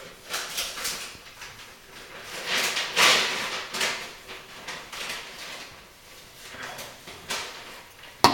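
Hands working a rubber seat into a kitchen faucet body: irregular scraping and rustling handling noises that come in swells, loudest about three seconds in.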